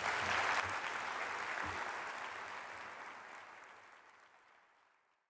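Audience applauding, fading out over about five seconds.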